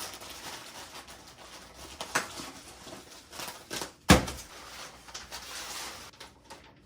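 Scattered knocks and handling noises, with one sharp knock just after four seconds in.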